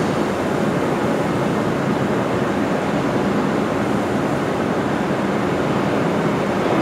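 Steady, dense noise of production-line machinery, with no separate knocks or clear tones standing out.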